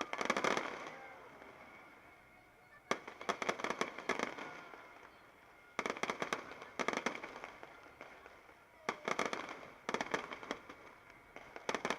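Fireworks going off in repeated bursts of rapid crackling pops, each burst lasting about half a second to a second, with short gaps between them.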